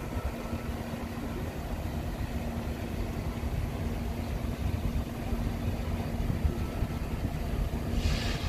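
EMD SD60M diesel locomotives approaching with a freight train: a steady low engine rumble that slowly grows louder, with a steady hum. A short hiss near the end.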